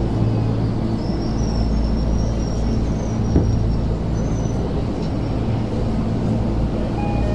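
Tokyo Metro Ginza Line subway car running into a station, heard from inside the car: a steady low rumble of wheels and running gear with a faint high whine above it and a single small click partway through. Short pitched tones begin near the end.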